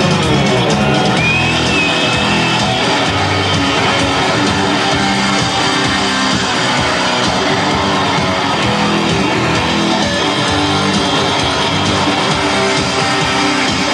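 Rock band playing an instrumental passage, with strummed electric guitars over a bass line.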